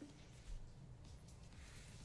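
Near silence: quiet room tone, with a faint low bump about half a second in.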